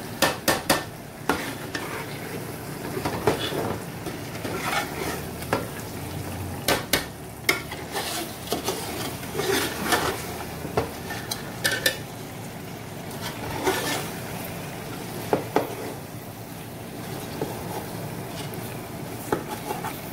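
A slotted metal spoon scraping and knocking irregularly against an aluminium pot as fish pieces are turned in masala, with a steady sizzle of the masala frying in oil underneath.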